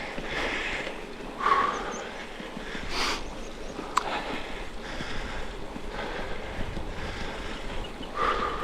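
Wind rushing over the microphone of a bicycle freewheeling with the pedals still, swelling in several gusts. A single sharp click about four seconds in.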